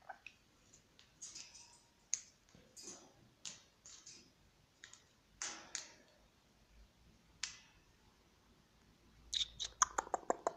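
Australian king parrot climbing about a wire cage top: scattered faint clicks and taps of beak and claws on the metal bars, then a quick run of sharper clicks near the end.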